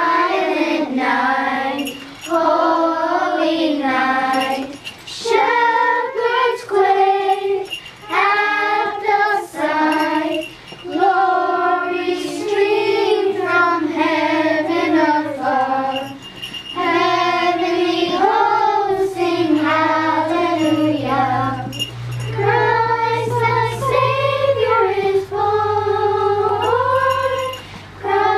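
A group of young girls singing a Christmas carol together in unison, without accompaniment, in phrases broken by short breaths. About twenty seconds in, a low steady hum joins beneath the singing.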